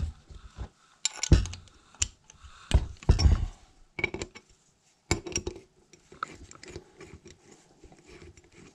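Hand tools and engine parts clinking and knocking: a socket turned by hand on the cylinder nuts of a moped engine. Irregular sharp metal clinks, most of them in the first half, then quieter handling.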